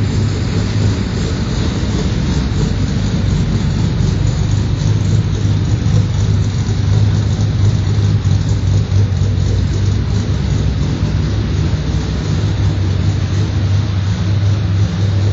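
Chevrolet Opala engine, naturally aspirated and converted to FuelTech electronic fuel injection with a modified cam and head, running steadily at a constant speed.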